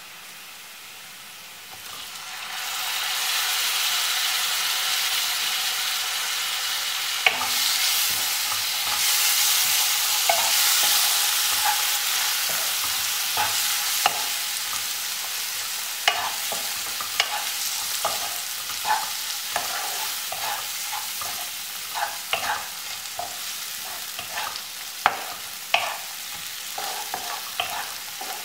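Chopped tomatoes sizzling in hot oil in a non-stick pan: the sizzle starts about two seconds in and slowly dies down. From about seven seconds in, a wooden spatula stirs them, knocking and scraping against the pan many times.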